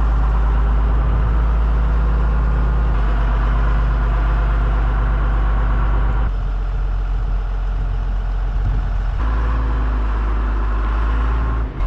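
Heavy loader's engine running steadily while it lifts and carries a junk car. Its note shifts abruptly about three, six and nine seconds in.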